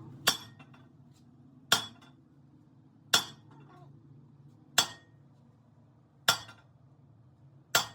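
Hammer striking steel, six single blows about a second and a half apart, each with a short metallic ring.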